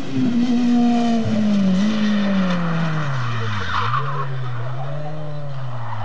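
BMW 318is E36 rally car's four-cylinder engine, its note falling and wavering as the car slows and slides through a corner, with tyres skidding about halfway through.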